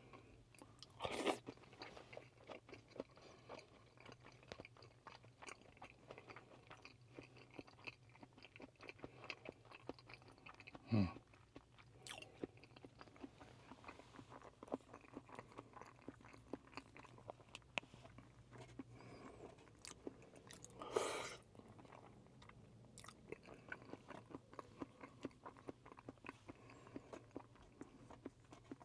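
A person chewing and eating with chopsticks, picked up close on a clip-on microphone: soft chewing and mouth sounds with many small clicks of chopsticks against plastic food containers. A few louder short sounds stand out, about a second in, about eleven seconds in and about twenty-one seconds in.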